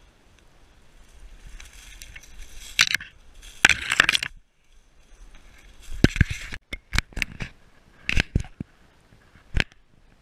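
Dry leaves and twigs crunching in irregular bursts, with several sharp snaps.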